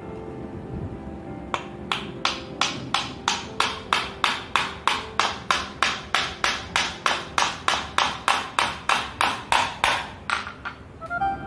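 Steel-headed hammer driving a nail into a wooden toy-truck frame: a steady run of sharp blows, about three a second, starting about a second and a half in and stopping shortly before the end.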